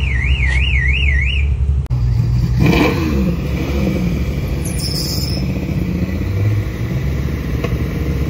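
Car engine running with a steady low rumble, briefly louder with a swell in pitch a few seconds in. For the first second and a half, a warbling alarm tone swings up and down about three times a second.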